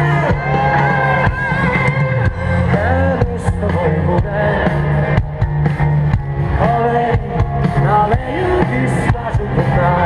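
Live rock music over a concert PA, heard from within a large crowd: a singer's voice over deep bass, drums and guitar.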